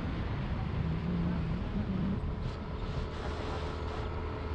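Yamaha NMAX scooter's engine running steadily on the move, with wind rushing over the microphone.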